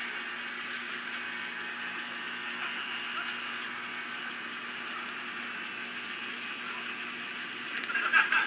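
Steady outdoor background hiss, then near the end a short, louder burst of rapidly pulsing calls from sandhill cranes.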